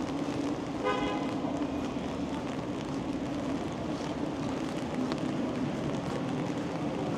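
Steady city street traffic noise, with a short car horn toot about a second in.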